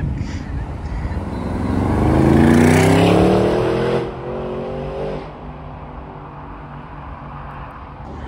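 McLaren 720S's twin-turbo V8 accelerating hard: the engine note climbs for about two seconds to a loud peak, then cuts off sharply about four seconds in as the throttle is lifted. Lower traffic noise follows.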